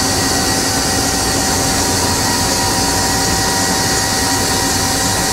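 Steady hum and hiss of machinery running under power in a machine shop, with a few constant whining tones held throughout.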